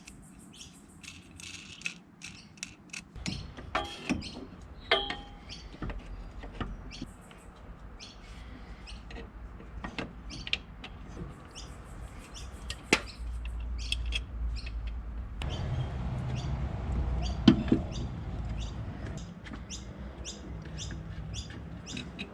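Scattered metallic clicks and knocks of bolts and engine-mount brackets being fitted hand tight, with a few sharper knocks. Birds chirp in the background.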